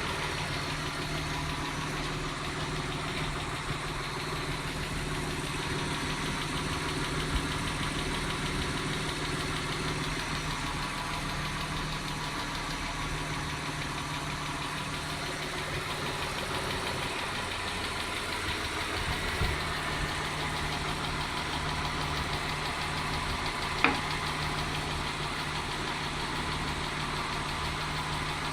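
Mitsubishi 6G72 3.0 V6 engine idling steadily with a fast, even ticking from the valvetrain, which the owner takes for knocking hydraulic lifters, while also wondering whether the engine is simply worn. One sharp click late on.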